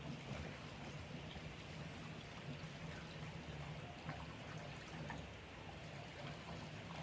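Gasoline pouring from a gas can through a funnel into a snowblower's fuel tank: a faint, steady trickle as the tank is filled.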